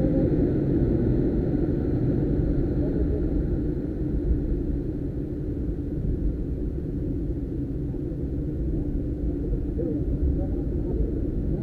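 Rough sea surf breaking and churning against rocks: a steady low rumble, loudest at the start and easing off somewhat in the middle.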